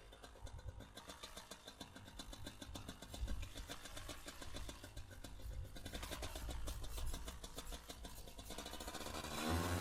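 Paramotor engine idling with an even pulse, then throttled up about nine seconds in, its pitch climbing. It is picked up by the helmet headset microphone.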